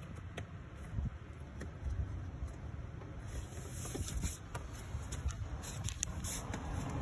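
Handling noise of hands working among the plastic radiator and fan-shroud parts: rustling, scraping and scattered light clicks over a low steady rumble, with louder high-pitched rustling in the second half as the handheld phone is moved about.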